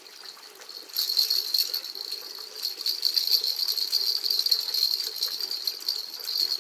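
Cicadas buzzing: a loud, steady, high rattling drone that starts about a second in and cuts off abruptly at the end.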